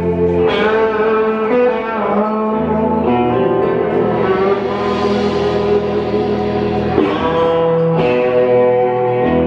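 Live band music led by electric guitars holding sustained, ringing chords that change every few seconds.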